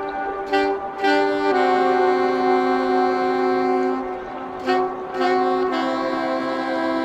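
Background music from a live dub band's track: a wind instrument holds long notes over the band, with a few short percussive hits.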